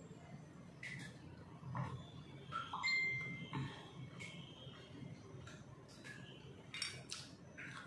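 Eating sounds: chewing, with light scattered clicks and clinks of bamboo satay skewers against a plate.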